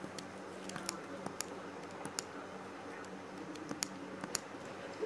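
Computer keyboard keys pressed one at a time: about half a dozen separate, irregularly spaced clicks over a faint steady low hum.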